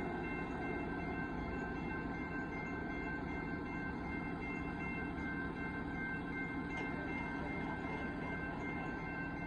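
Railroad grade-crossing warning bell ringing steadily over a low, even rumble from the railway, just after the passenger train has cleared the crossing.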